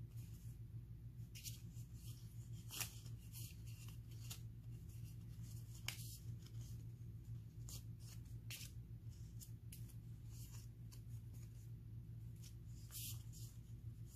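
A stack of small printed paper picture cards being leafed through and shuffled by hand: short, crisp paper flicks and rustles at irregular intervals, over a steady low hum.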